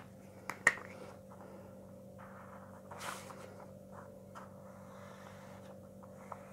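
Paper and pen handling on a desk: a sharp tap near the start, a sheet of paper sliding and rustling about three seconds in, then faint strokes of a felt-tip marker on the paper, over a faint steady hum.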